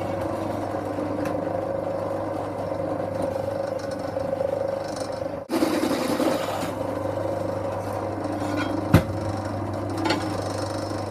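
Electric drill running steadily while drilling holes in steel plate. The sound breaks off briefly about five and a half seconds in, and there is a sharp click about nine seconds in.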